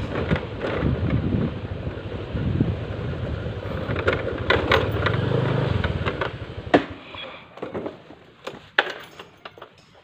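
Low rumbling wind and movement noise on a phone microphone carried along at walking pace, with scattered clicks and taps. About six seconds in it drops away to a quieter stretch of sparse sharp clicks.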